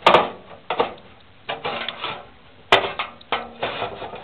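Hard drive being slid onto the clips of a desktop computer case's drive bay: an irregular run of clicks, knocks and scraping clatter, with sharp clicks at the start and again near the three-quarter mark.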